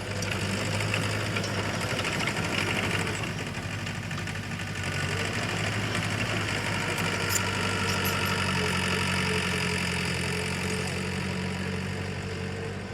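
Heavy diesel engine of earthmoving machinery running steadily, with the engine note shifting about two-thirds through.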